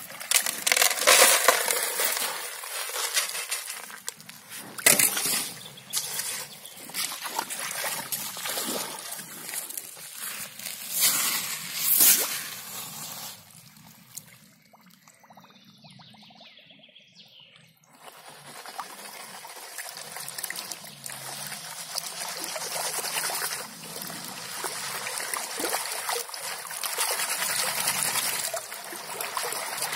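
Gravel shovelled and tipped out in several loud crashes. After a short quiet gap, shallow river water sloshes and trickles steadily as boots stir gravel over a sluice tray.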